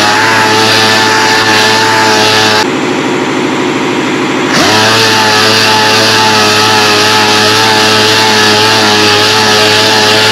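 Orbital sander running steadily with a whine while sanding a steel tube to an even finish for paint. Its pitch drops for about two seconds a few seconds in, then rises back up.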